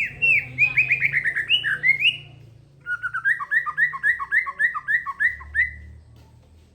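A songbird singing: a quick run of falling notes lasting about two seconds, a short pause, then a steady series of repeated notes at about four a second that stops shortly before the end.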